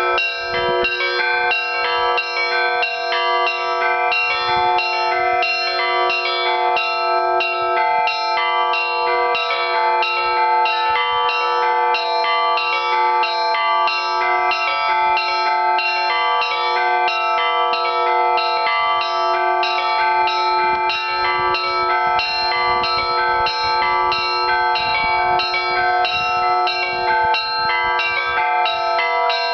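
Russian Orthodox church bells rung together in a continuous peal: quick strikes on the small, high bells over the steady ringing of the larger bells.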